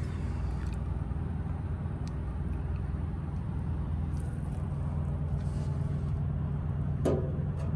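Freightliner Cascadia heavy diesel truck engine idling with a steady low hum. There is a short scrape near the end.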